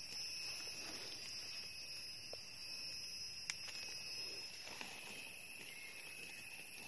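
Steady, high-pitched insect chorus, with one faint click about three and a half seconds in.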